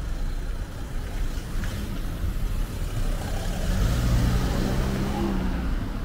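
A car passing close by and driving on, its engine hum and tyre noise swelling to the loudest point about four seconds in, over a steady hum of street traffic.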